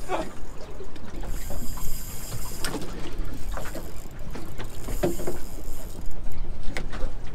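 Small boat drifting on choppy water: water slapping and sloshing against the hull, with low wind rumble on the microphone and a few faint knocks.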